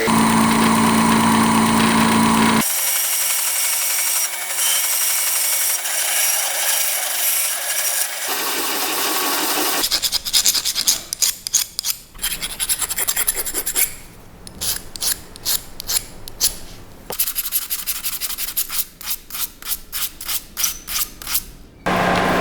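Steady hand scraping and rubbing, turning after about ten seconds into quick repeated strokes, a few a second.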